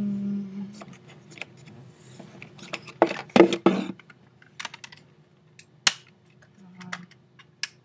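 Irregular clicks and taps of hands working at a computer keyboard, with a cluster of louder knocks about three seconds in and single sharp clicks near the end. A short hummed voice sound comes at the start.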